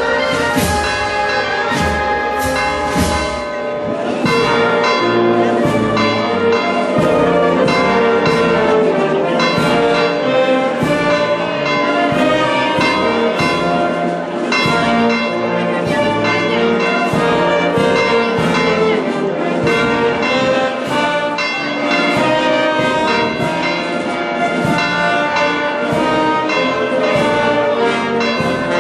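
Church bells pealing, struck again and again in quick succession so that their ringing tones overlap, with heavy low strokes in the first few seconds.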